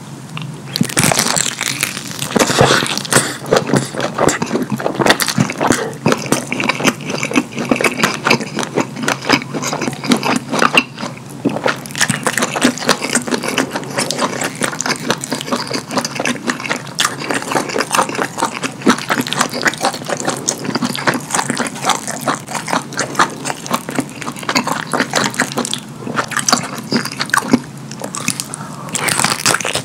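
Close-miked wet chewing and lip smacking of a mouthful of kielbasa sausage with saucy, cheesy lasagna: many small wet clicks and squelches without pause.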